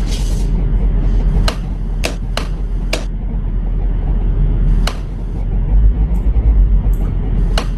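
Heavy wind rumble on a phone microphone, with a few sharp clicks and knocks, and a louder burst of splashing about six seconds in as a man falls into shallow muddy water.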